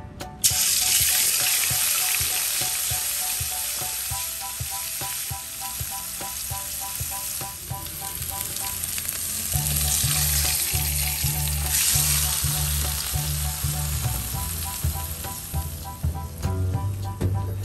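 Hot cooking oil sizzling steadily in an aluminium wok as cassava leaves fry. The sizzle starts abruptly about half a second in and grows louder again around twelve seconds.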